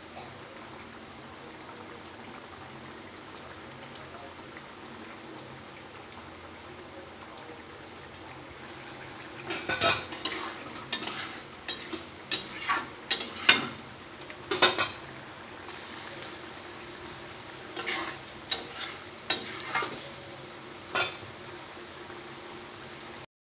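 Curry sizzling steadily in a steel kadai. From about ten seconds in, a utensil stirs and scrapes against the pan in a run of sharp metallic clinks, with a few more near the end.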